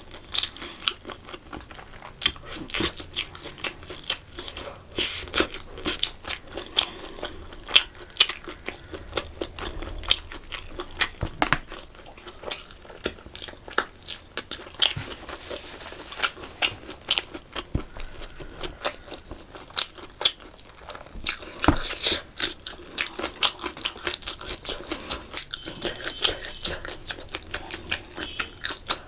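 Close-miked eating: wet chewing and smacking with irregular sharp clicks and crunches throughout.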